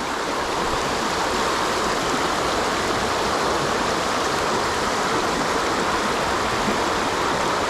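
Creek water running over its current seam: a steady rushing with no change.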